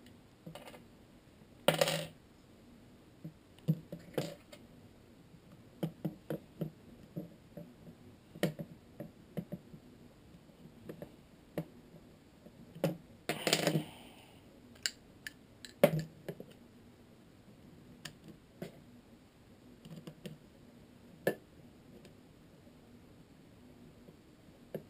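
Small metal parts and a screwdriver clicking and clattering irregularly as screws are put back into a gun's frame. A few louder knocks come about two seconds in, around thirteen seconds and near sixteen seconds.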